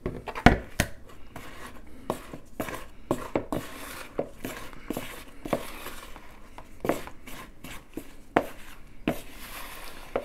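Wooden spoon stirring flour into a wet egg, pistachio and cranberry mixture in a mixing bowl, with irregular knocks and scrapes of the spoon against the bowl as the mix thickens into a stiff dough. The loudest knock comes about half a second in.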